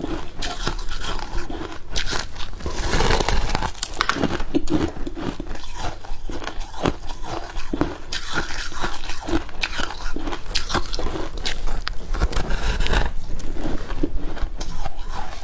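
Close-up bites and chewing of soft freezer frost: many short crunches and crackles in quick, irregular succession.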